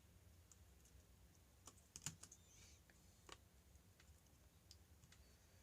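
Faint, scattered clicks and taps from a Samsung Galaxy Tab 3's parts being handled during reassembly, the sharpest about two seconds in.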